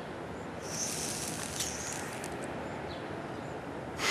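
Dog taking a drag on a cigarette: a hissing inhale lasting about a second and a half with faint crackling, then a sharp puff of exhaled breath at the very end.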